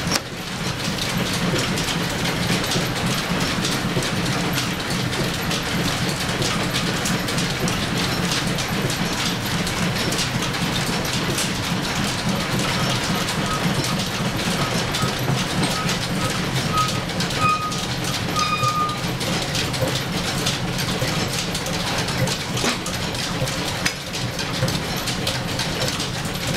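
Belt-driven lathe and overhead line shaft running steadily, a mechanical clatter with many small clicks. A faint thin squeal sounds for several seconds in the middle.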